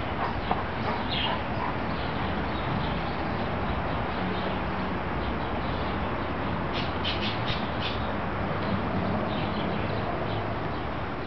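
Steady outdoor background noise with short bird calls over it, a quick cluster of them about seven to eight seconds in.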